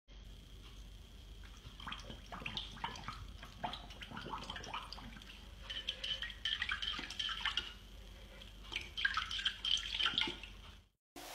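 A puppy pawing at the water in its bowl: small irregular splashes and drips, with its paw knocking against the bowl. The splashing gets busier about six seconds in and again near the end.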